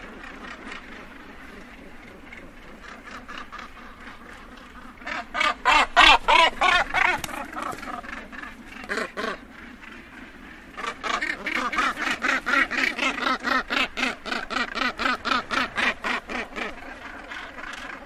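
Northern gannets calling at a breeding colony: rapid runs of harsh calls close by, about five a second, one about five seconds in and a longer one starting about eleven seconds in, over a steady background of other gannets calling.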